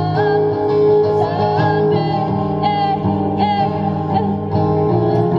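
Street busking: a woman singing into a microphone over a strummed acoustic guitar, both played through a small amplifier.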